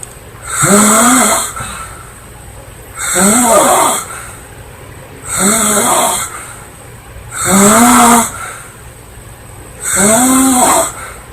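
A girl snoring loudly in a steady rhythm: five snores, about one every two seconds. Each snore carries a pitched tone that rises and then holds.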